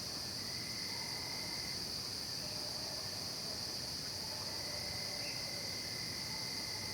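Night chorus of crickets, a steady, unbroken high-pitched trill, with a few faint, drawn-out lower tones now and then.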